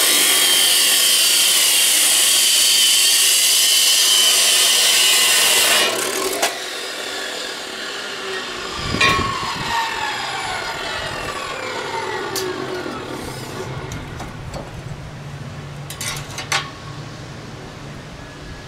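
DeWalt 14-inch abrasive chop saw cutting through steel square tubing, a loud harsh grinding for about six seconds. The cut ends and the motor winds down with a slowly falling whine, with a thump about nine seconds in and a few light clicks near the end.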